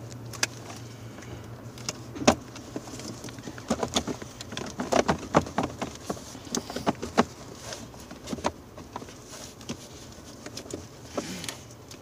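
Plastic parts of a truck's heater box being wiggled and pried loose by hand: irregular clicks, knocks and rattles, thickest in the middle seconds.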